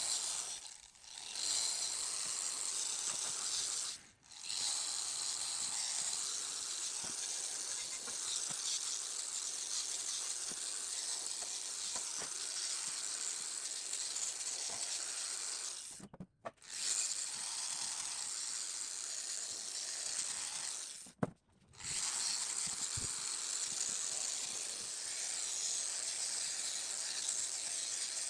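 A steady, high-pitched hiss, like a spray or an air blast, that breaks off briefly a few times and starts again, with faint ticks and clicks beneath it.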